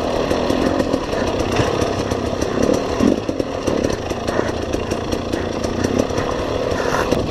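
KTM enduro motorcycle engine running hard on a rocky trail, its revs rising and falling with the throttle. Frequent clicks and knocks from the bike rattling over the rough ground.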